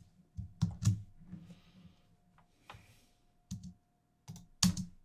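Computer keyboard and mouse clicks: a handful of separate taps spread over a few seconds, the loudest about a second in and near the end.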